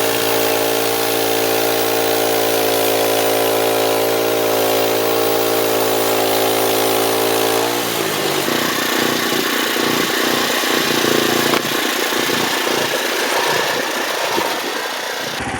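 Portable bandsaw sawmill's gasoline engine running steadily at high speed, then its pitch drops sharply about eight seconds in and it carries on lower and rougher.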